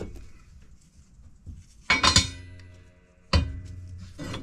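Two ringing metal clanks, a quick double one about two seconds in and another about three and a half seconds in, as metal pieces are knocked together while a wheel hub and bearing are set up on a hand press.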